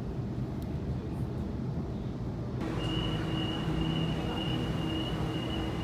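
Suburban train running, heard from inside the carriage as a steady low rumble. About two and a half seconds in it cuts to a different steady noise with a thin, high, even whine over a low hum.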